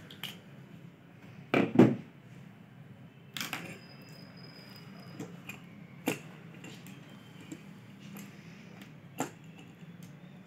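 Scattered clicks and knocks of a small hand tool and wire being handled inside an opened plastic extension socket strip, the loudest a quick pair of knocks about two seconds in.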